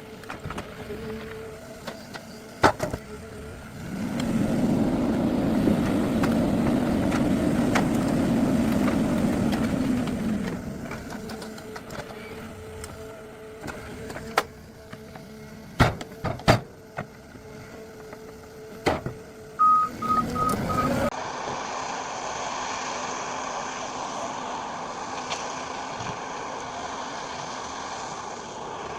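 Forestry machine at work handling logs: its diesel engine revs up and runs hard for about six seconds, then several sharp knocks of logs or steel follow. Four short beeps come near the end, and the sound switches abruptly to a steady engine drone.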